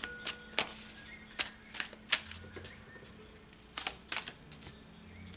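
Tarot cards being handled by hand: a string of irregular crisp clicks and taps as cards are slid out of the deck and laid on the table.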